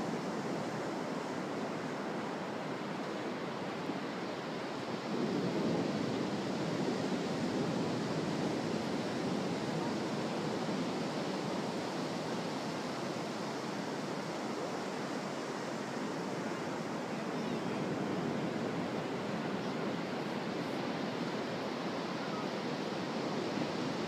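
Ocean surf washing steadily onto a sandy beach, swelling a little about five seconds in.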